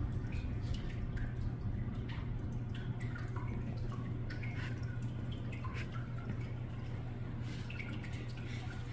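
Water dripping into water, several drops a second, over a steady low hum.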